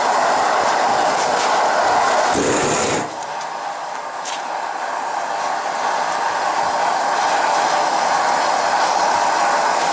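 A torch flame burning with a steady rushing hiss. About two and a half seconds in there is a brief low thud, then the hiss drops and slowly builds back up.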